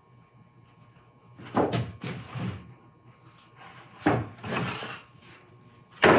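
Light foamcore boxes being handled and set down on a table-saw top: three hollow knocks about two seconds apart, each followed by a short scrape, the last the loudest near the end.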